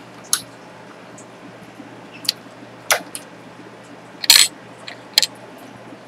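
A handful of sharp metallic clicks and taps as a small sterling silver pendant and metal tools are handled on a soldering bench, the loudest a short clatter about four seconds in as the piece is turned and set down, over a low steady hum.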